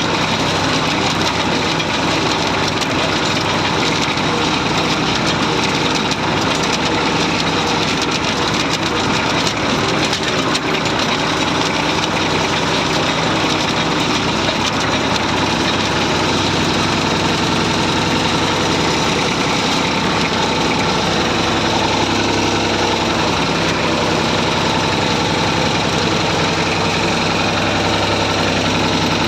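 Massey Ferguson 35 tractor engine running steadily, its note shifting slightly about twenty seconds in.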